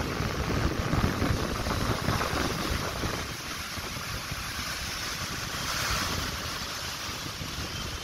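Heavy monsoon rain hissing steadily, with strong gusting wind buffeting the microphone. The buffeting is heaviest in the first three seconds and then eases, and a gust swells the hiss about six seconds in.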